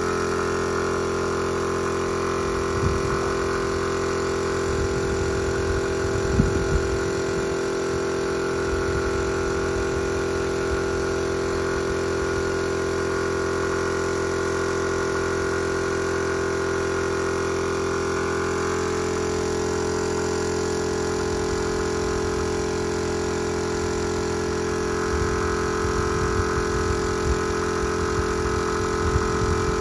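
Small piston air compressor running steadily with a constant hum, feeding a paint spray gun. A few low thumps come through, once near the start and several times near the end.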